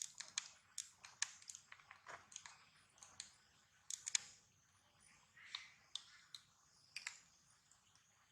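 Irregular sharp crisp clicks and crunches, a few each second, loudest in a close pair about four seconds in and thinning out later.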